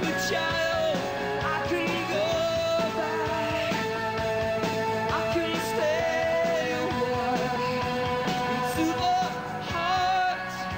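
Rock band playing live: a male singer holding long, wavering sung notes over electric guitar, bass guitar and drums.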